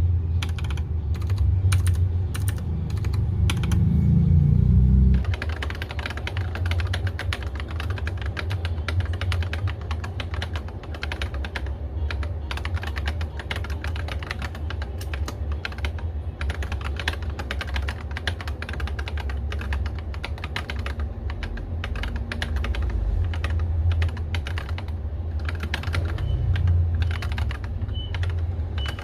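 Continuous typing on a Rakk Illis mechanical keyboard fitted with Akko V3 Cream Yellow linear switches, keystrokes clacking in quick succession. The strokes are sparser for the first five seconds or so and turn into steady, rapid typing after that.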